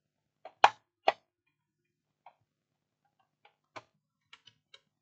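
Sharp plastic clicks and knocks from handling a battery charger's casing: two loud clicks about half a second apart near the start, then scattered fainter ticks.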